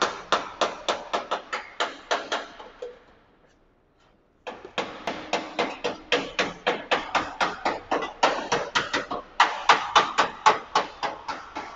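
Hand hammer striking the sheet metal at the front of a car in quick, uneven blows, several a second, each with a short metallic ring. The blows stop for about a second and a half after about three seconds, then resume.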